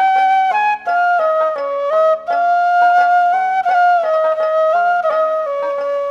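Background music: a flute playing a melody that steps from note to note over a steady lower accompaniment.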